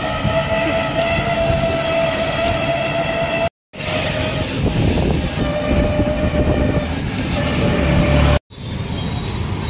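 Street traffic noise heard from a moving vehicle, with a long, steady horn blast held for several seconds that sounds again, weaker, after a break. The sound cuts out completely twice for a moment.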